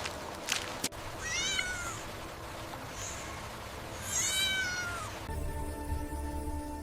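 A cat meows twice in high-pitched, drawn-out calls, the second about three seconds after the first. Steady background music comes in near the end.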